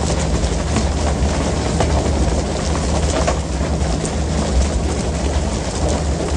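Fishing boat's engine running with a steady low drone under the rush and splash of water along the hull, with a few scattered knocks.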